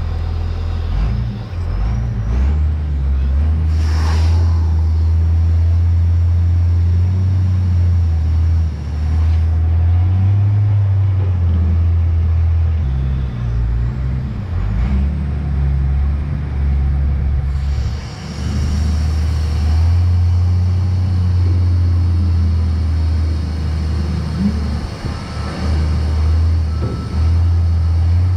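A heavy engine running and changing load, with short hisses of air about four seconds in and again around eighteen to twenty seconds in.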